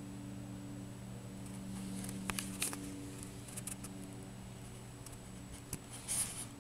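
A few soft clicks and a short rustle near the end as a cat's fur brushes against the camera microphone, over a low steady hum.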